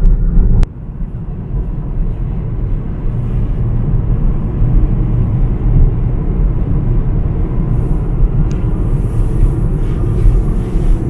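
A car being driven, heard from inside the cabin as a steady low rumble of road and engine noise. There is a short click about half a second in.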